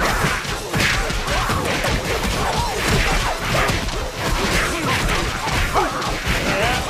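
Cartoon fight-cloud sound effects: a rapid, unbroken jumble of crashes, whacks and thuds over music, with short sliding squeaks mixed in.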